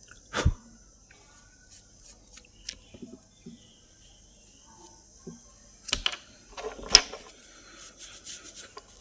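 Sharp clicks and knocks from small hard objects being handled, loudest about half a second in and again around six and seven seconds, with a cluster of lighter ticks near the end. Behind them runs a steady high chirring of crickets.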